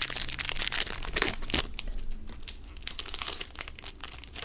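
Trading-card pack wrapper being torn open and crinkled by hand: a dense, irregular crackling that is busiest in the first couple of seconds, then thins to scattered crinkles.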